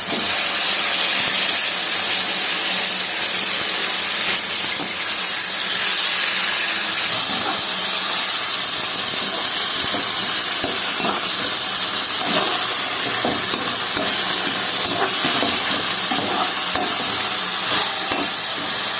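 Marinated chicken frying in hot oil in a pan: a loud, steady sizzle with scattered small crackles.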